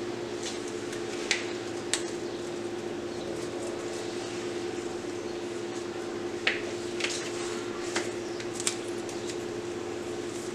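A steady mechanical hum with a constant tone, broken by scattered short clicks and rustles as rose stems and leaves are handled and pushed into floral foam.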